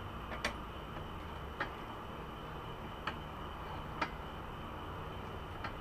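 Allen wrench working a bolt on a motorcycle's rear set and exhaust mount: about five sharp metal clicks at irregular intervals as the key is turned and refitted.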